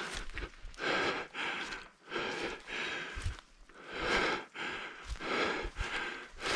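Heavy breathing close to the microphone, a rush of breath in and out about once a second.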